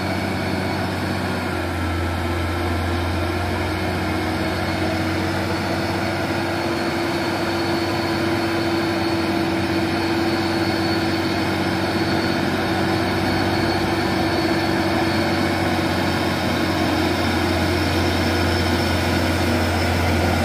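Hino 500 truck's diesel engine pulling hard and slowly up a steep hairpin at a steady engine speed, a constant low drone that grows gradually louder as the truck comes closer.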